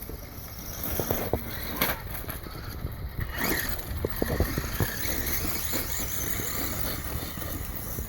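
HPI Savage Flux XS RC monster truck being driven, its brushless electric motor whining with the throttle. Scattered short clicks and knocks run through it as the truck bounces around.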